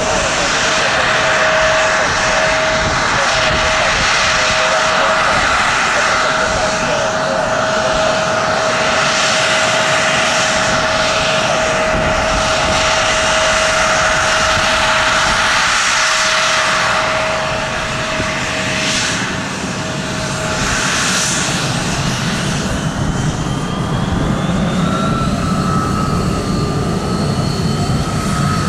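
Airliner engines running loud and steady with a held whine, then new higher whines that rise in pitch over the last few seconds.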